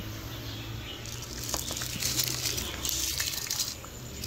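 Soaked rice being poured from a bowl into a pot of boiling water: a splashing rush that starts about a second in and dies away shortly before the end.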